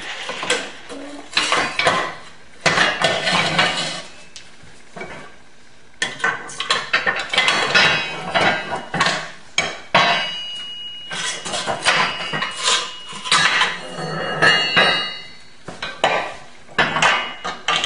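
Steel sway bar and its mounting brackets clanking and clinking on a concrete floor as they are handled, a run of irregular metal knocks, some ringing briefly.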